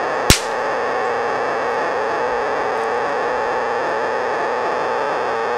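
Portable cassette player's speaker giving out a steady distorted hiss, with one sharp click about a third of a second in.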